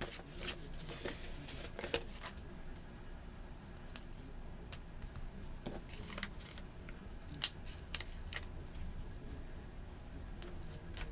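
Irregular small sharp clicks and paper handling sounds from planner stickers and paper being worked at a desk, over a faint steady hum.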